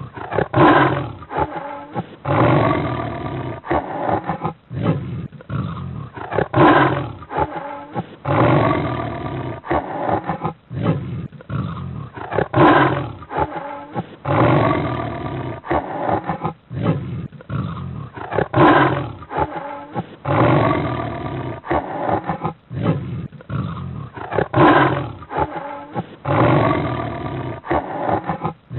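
A big cat roaring and growling in loud calls with rumbling between them; the same short recording is looped, so the sequence repeats about every six seconds.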